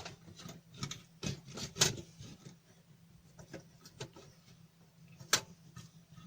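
Scattered light clicks and knocks of a cooling fan being unfastened and lifted out of a power supply's metal case, the sharpest near two seconds in and just past five seconds in.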